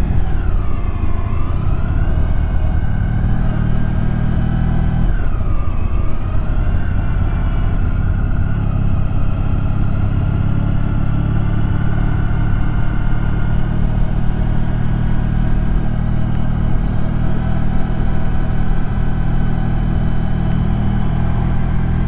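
Honda ST1100's V4 engine running at low road speed. Its pitch dips twice as the throttle eases off and picks back up, then holds steady.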